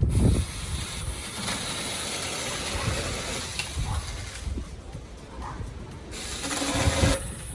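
Battery-powered Saker mini chainsaw cutting through tree branches, its chain rasping through the wood. The cutting stops briefly about two-thirds of the way through, then starts again.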